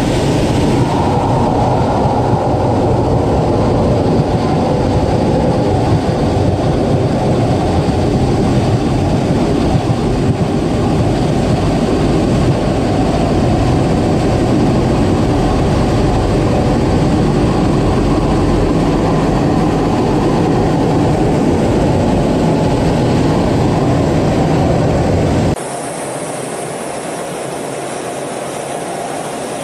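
Steady loud rumble of jet engine and rushing air heard inside the cockpit of a Blue Angels F/A-18 Hornet. Near the end it cuts abruptly to a quieter, thinner noise without the deep rumble.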